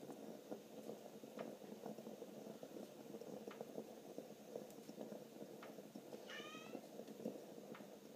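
Domestic cat giving one short, high-pitched chirping meow about six seconds in, over steady low background noise.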